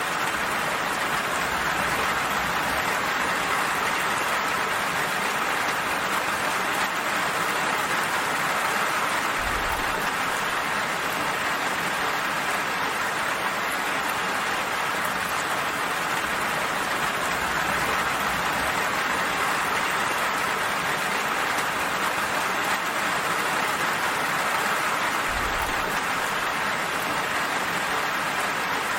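Steady, even rain falling, a dense continuous hiss of drops without pauses or thunder.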